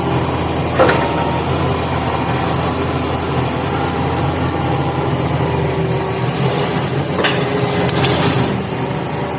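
An engine running steadily with a low hum, with a short knock about a second in and another near the end.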